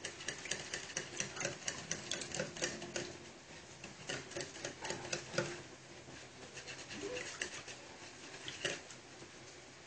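Eggs, oil and water being beaten by hand in a bowl: quick, irregular clicks of the mixing utensil against the bowl, thinning out about halfway through.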